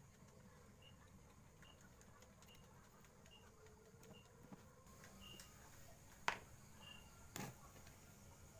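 Near silence with faint short chirps repeating about once a second, and two sharp clicks in the second half.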